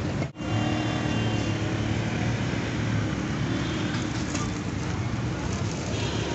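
Street traffic noise: a steady hum of vehicle engines and passing traffic, with a brief dropout just after the start.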